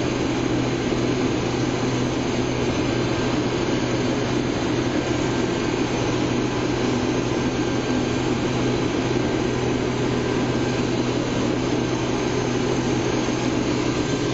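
Case IH 2388 combine running steadily under load while cutting wheat: an even drone of the diesel engine and the threshing machinery, heard from inside the cab.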